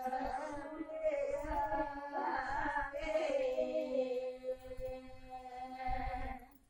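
Women singing a slow traditional wedding folk song, drawing out long held notes in a chant-like melody; the singing fades out near the end.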